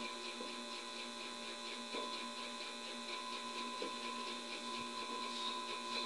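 Mini Tesla coil kit running, giving a steady electrical hum made of several constant tones, with a few faint ticks.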